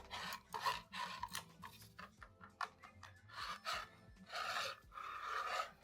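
Aqara U200 smart lock's motorised drive running, giving a repeated rasping, scraping grind in short strokes that grow louder about halfway through. It is the fault noise that remains after lubrication, which the owner traces to the knob being forced and pushed slightly down.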